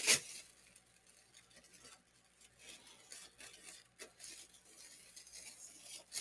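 Scissors cutting a thin plastic shopping bag: a sharp crinkle right at the start, then faint, scattered snips and rustles of the plastic.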